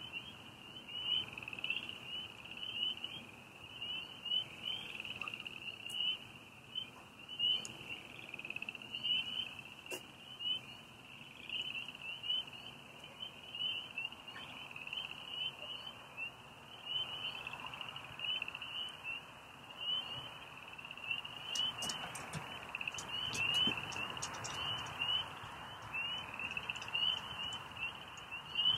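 Night chorus of frogs: a dense, continuous run of short, high-pitched calls, all at about the same pitch, with a brief patch of faint clicks about three-quarters of the way through.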